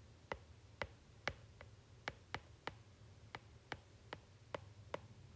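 Stylus tip tapping and clicking on an iPad's glass screen while handwriting, a dozen or so short, faint ticks at an uneven pace of two to three a second.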